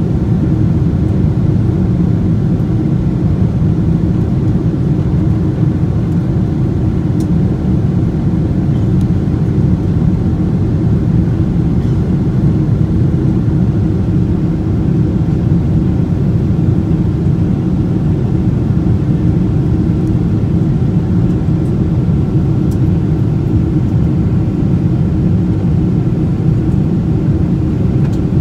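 Cabin noise on board a Boeing 777-200ER in the climb: a steady, deep rush of jet engines and airflow, with a faint even hum riding on top.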